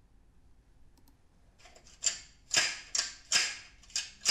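Cap gun firing, played back through a loudspeaker: a quick run of sharp snaps about half a second apart, starting about two seconds in.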